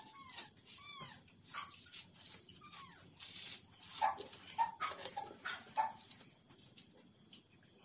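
A dog whimpering: a run of short, falling whines in the first three seconds, then short yelps from about four seconds in.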